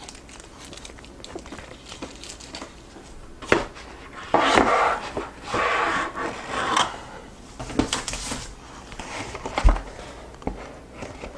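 Packaging being handled while a boxed keyboard is unpacked: rustling and scraping, a sharp click about three and a half seconds in, further clicks, and a dull thump near the end.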